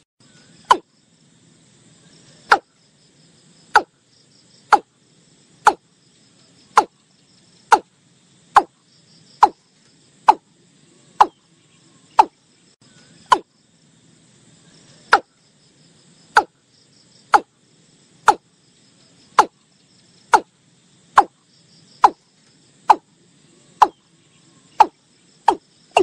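Watercock calling: a long series of short, sharp, hollow notes, each falling slightly in pitch, repeated about once a second with a short pause about halfway through. A faint insect-like buzz runs underneath.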